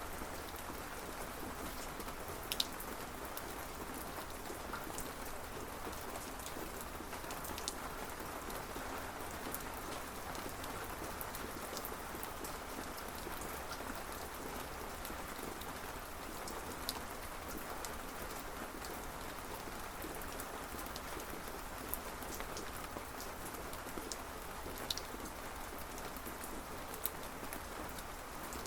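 Steady rain falling, an even hiss with scattered sharp drop ticks striking a surface.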